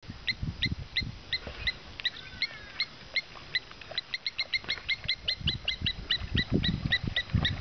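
A long series of short, high chirping calls from a small wild animal, about three a second at first and quickening to about five a second partway through. Low bumps and rustling grow louder toward the end.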